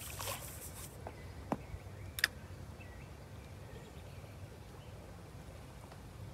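Quiet open-water ambience: a steady low wind rumble on the microphone, with a few sharp clicks in the first couple of seconds and faint distant bird calls.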